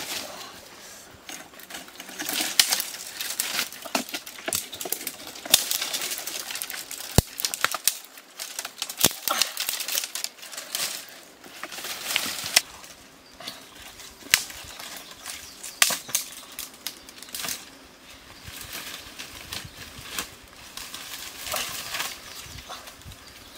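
Dry brush and dead twigs rustling and crackling in irregular bursts as branches are pulled out of a tangle of deadwood and gathered, with a couple of sharp snaps about a third of the way in.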